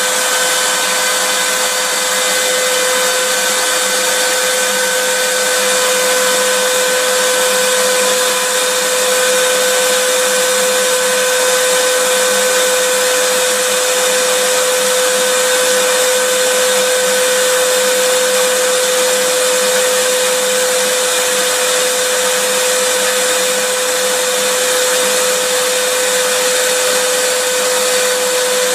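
Vacuum cleaner running steadily as white noise: an even hiss with a constant whine on top, never changing.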